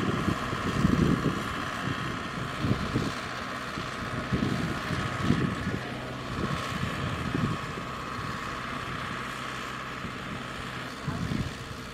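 Kubota combine harvester's diesel engine running steadily, close by, as it pushes a loaded farm tractor out of soft ground. The tractor's engine also runs, and irregular gusts of wind buffet the microphone.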